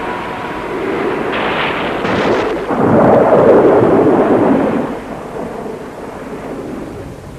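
Thunderstorm sound effect: a long rumbling thunderclap over storm noise, loudest about three to five seconds in and then dying away.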